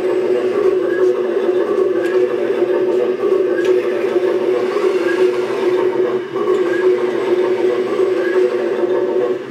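Electric hydraulic pump of a 1/8-scale RC hydraulic excavator running with a steady whine, holding one pitch while the boom and bucket are moved.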